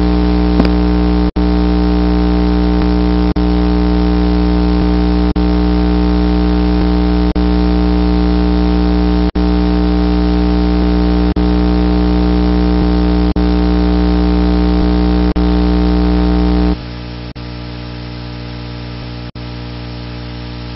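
Loud, steady electrical mains hum with many overtones, broken by brief dropouts about every two seconds; a little over three-quarters of the way through it drops to a quieter level.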